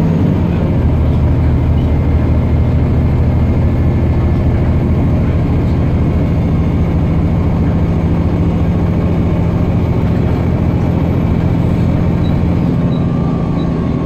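Volvo B7TL double-decker bus's Volvo D7C six-cylinder diesel engine running, heard from inside the lower deck as a steady low drone. Its note drops to a lower pitch about half a second in, then holds.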